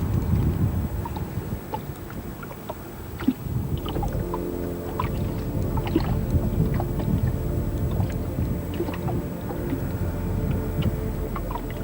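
Water sounds around a small boat on a lake, with low wind rumble and small knocks. About four seconds in, a steady hum of several tones joins in.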